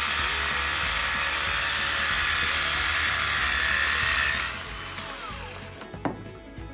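Handheld battery-powered pre-spray sprayer running, its pump whirring and the spray hissing onto the carpet, cutting off about four and a half seconds in. Background music underneath, and a sharp click near the end.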